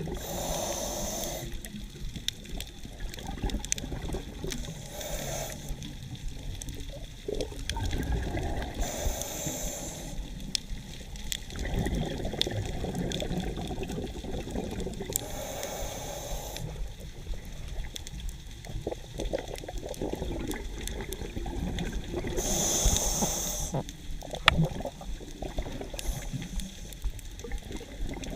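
Underwater sound of a scuba diver breathing through a regulator: a rush of exhaled bubbles every few seconds, about five times, over a steady low underwater rumble with faint crackling clicks.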